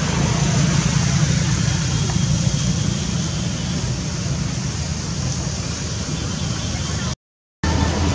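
Steady outdoor background noise, an even rushing hiss over a low hum, that cuts to silence for about half a second at an edit about seven seconds in and then resumes.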